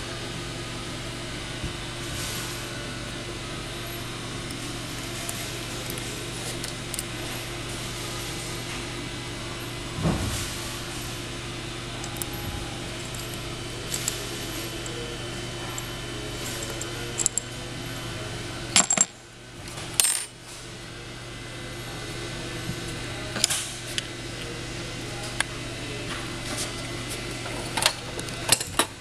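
Small metal tools and parts clinking and knocking on a workbench now and then, sharpest twice about two-thirds of the way through, over a steady low electrical hum.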